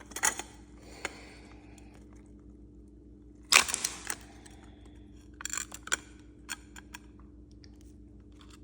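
A large oyster being pried open by hand: short crunching and crackling bursts of shell and tissue giving way, the loudest about three and a half seconds in.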